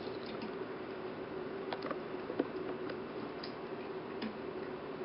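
A few scattered light clicks and taps as parts of a veterinary anesthesia machine's CO2 absorber are handled and fitted back together, over a faint steady hum.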